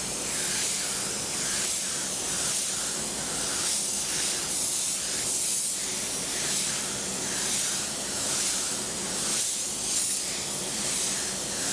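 Gravity-feed paint spray gun with a 1.6 mm setup spraying coats of high-build surfacer onto a car panel: a steady hiss of compressed air and atomised paint that swells and eases with each pass.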